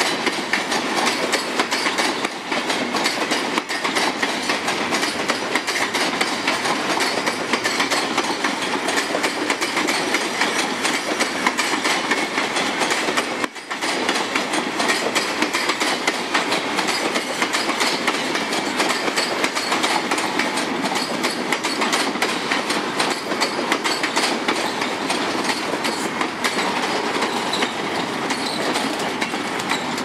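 Freight wagons rolling past, their steel wheels clattering over the rail joints in a continuous loud rattle and rumble. The sound dips briefly a little before halfway, then carries on.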